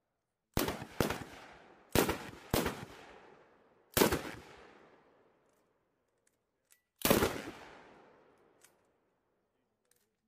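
M240B 7.62 mm machine gun firing about six short bursts, each trailing off in a long echo, with pauses of a second or more between them.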